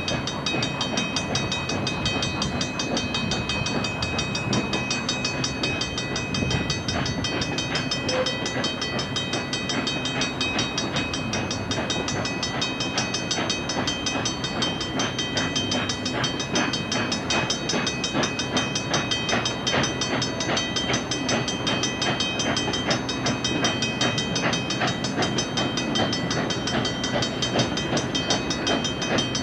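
Steam locomotive No. 18 working slowly past with its passenger train: an even, unbroken run of exhaust beats and the clatter of running gear and coach wheels on the rails.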